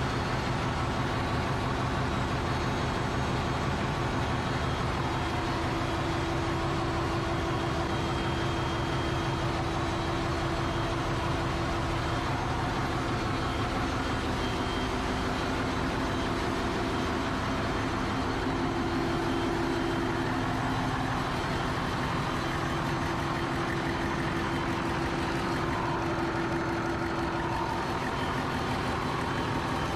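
Ship's engine-room machinery running: a loud, unchanging mechanical din with a steady low hum.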